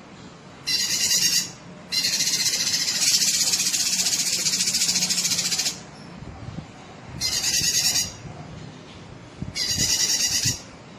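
Cucak kinoi singing loudly in bursts of rapid, high-pitched chattering notes: a short burst, a long run of nearly four seconds, then two more short bursts.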